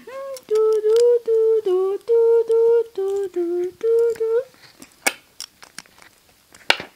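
A person humming a short wordless tune of about nine held notes, followed by a few sharp clicks.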